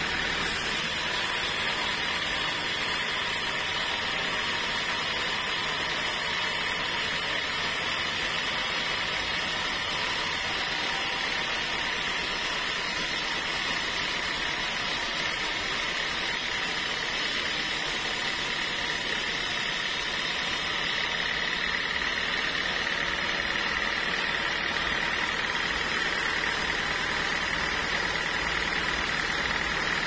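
Band sawmill running steadily as its blade cuts lengthwise through a large teak log, a continuous mechanical noise with a steady high-pitched whine.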